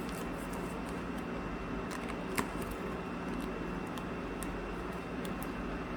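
Faint clicks of trading cards being handled, the clearest about two and a half seconds in, over a steady low background hum.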